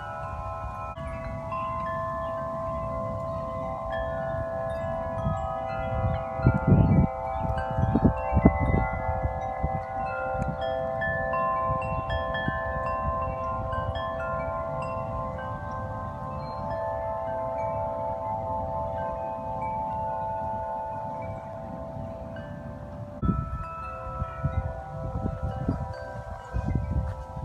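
Several tuned metal wind chimes ringing together in the wind, many long overlapping tones sounding at once. Wind gusts buffet the microphone with a low rumble, strongest a few seconds in and again near the end.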